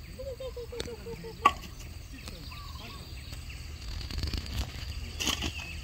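Outdoor ambience with a steady faint high insect buzz. In the first second and a half comes a quick run of about eight soft low calls, then a single sharp click. A brief higher bird call follows near the end.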